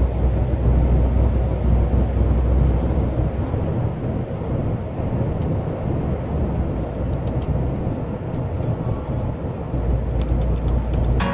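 Inside the cab of a MAN TGX 500 hp truck cruising at about 80 km/h: a steady low drone of engine and tyre rumble on the road.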